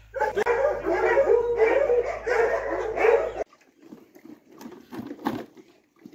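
A pack of hounds whining and yipping over one another, which cuts off abruptly after about three seconds. Fainter scuffles and knocks follow as a hound eats from a plastic bowl.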